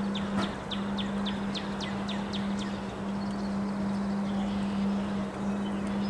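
Wind blowing through bare trees over a steady low hum, while a bird gives a quick run of about ten short, falling high notes in the first half.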